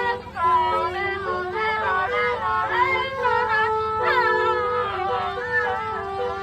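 Basuri musical bus horn playing a tune: held notes that step from pitch to pitch, with sliding, wavering flute-like tones above them.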